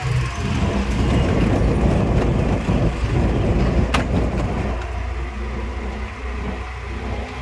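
Ride noise from a rickshaw in motion: a steady low rumble of the vehicle and road, with a single sharp click about four seconds in.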